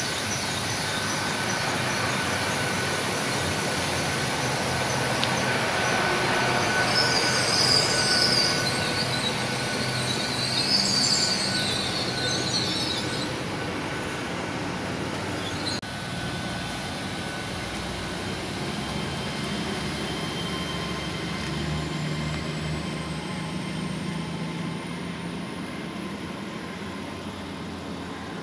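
Passenger train running along the platform with a steady whine over the rolling noise. For several seconds about a quarter of the way in, its wheels give a high-pitched squeal. Near the end a faint rising whine comes in as another train approaches.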